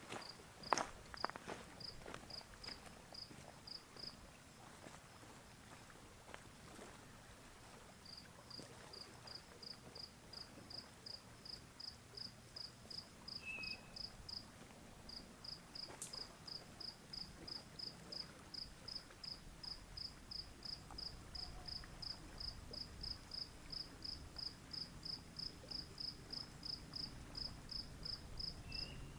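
A cricket chirping in a steady, even rhythm of about two chirps a second. The chirping stops for a few seconds shortly after the start, then runs on without a break. A few soft knocks sound in the first second.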